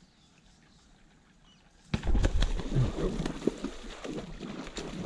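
A Murray cod strikes a surface lure about two seconds in: a sudden loud splash, followed by continued splashing and thrashing at the surface as the hooked fish fights.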